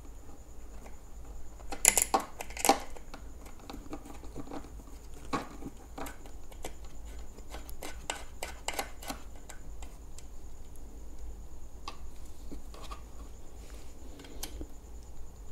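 A metal valve core remover tool scraping and clicking in an electric unicycle's tyre valve stem as it is worked in to unscrew the valve core of the deflated tyre. There are scattered small ticks and scrapes, with two sharper clicks about two seconds in as the loudest.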